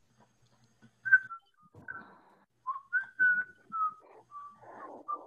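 A person whistling a melody of short notes, starting about a second in, picked up through a video-call microphone.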